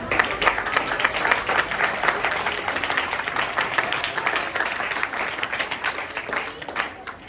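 Audience applauding: dense hand clapping that starts sharply and thins out near the end.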